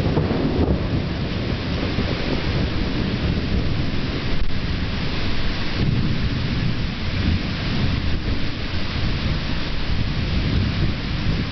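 Thunderstorm: steady rain with continuous low rumbling thunder.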